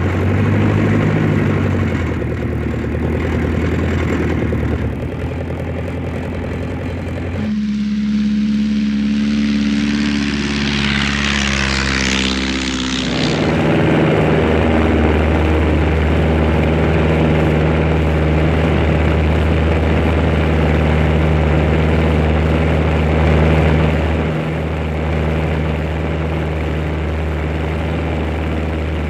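The RC Tiger Moth's de Havilland Gipsy Major engine sound, a steady propeller-aircraft drone in flight. About a third of the way in the note moves higher for roughly five seconds, with a rush of air swelling in the middle, then it settles back to a steady lower drone.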